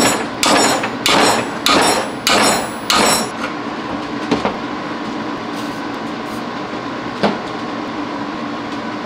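Hammer striking a wrench on a seized, rusted exhaust-manifold nut to jar it loose: about six sharp metallic blows roughly half a second apart, stopping about three seconds in. A steady hum follows, with two lighter knocks.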